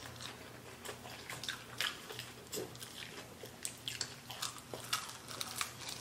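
Close-miked biting and chewing of battered fried chicken wings by two people: many short, irregular mouth clicks and smacks over a faint low hum.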